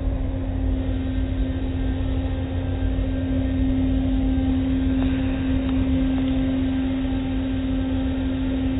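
Automatic car wash machinery running, heard through a car's windows: a steady low rumble with a constant hum.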